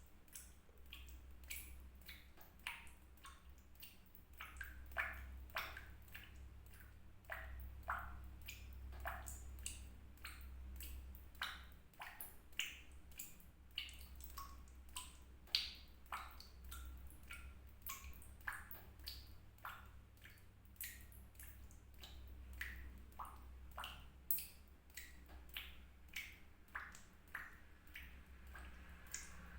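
Water drops falling one after another at an irregular pace, about two to three a second, each landing as a short plink at a varying pitch. A steady low hum runs underneath.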